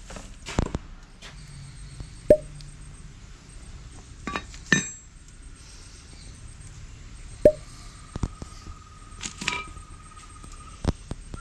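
Metal clinks and knocks, a handful of sharp separate strikes, some with a short ring, as metal tools and parts are handled. A faint steady tone joins in during the last few seconds.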